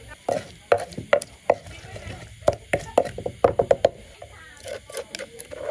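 Wooden pestle pounding chili paste in a wooden mortar: a series of sharp wooden knocks, some in quick runs of several strokes.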